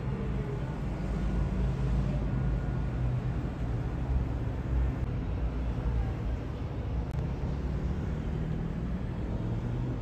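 A 63-metre Benetti superyacht's engines giving a steady low drone as it manoeuvres slowly to dock.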